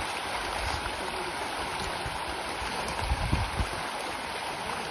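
A dense school of pond fish thrashing at the surface in a feeding frenzy: a steady churning splash of water, with a few low thumps about three seconds in.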